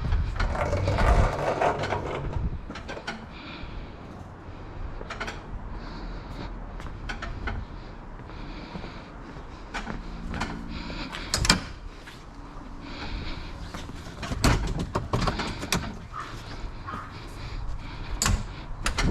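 Scattered knocks and clicks of tools and metal parts being handled, with a sharp knock about eleven and a half seconds in.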